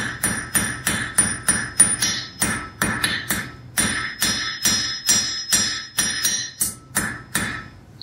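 Hand hammer striking red-hot iron on the anvil in a steady rhythm of about three blows a second, each blow ringing bright and metallic: drawing out the bar, making it longer. The blows slow slightly after the first couple of seconds and stop about half a second before the end.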